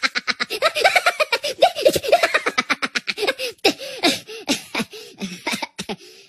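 Two animated Minions laughing hard in high, squeaky voices: a rapid run of cackles that slows into separate giggles near the end.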